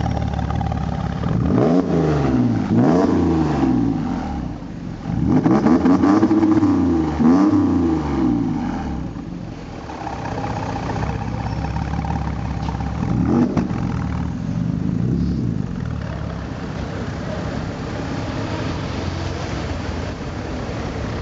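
TechArt Magnum (tuned Porsche Cayenne) engine revved through its quad-tip exhaust. There are two quick blips of the throttle, then two more a few seconds later, each rising and falling in pitch, and a single short blip later on. After that the engine runs steadily at low revs among street traffic.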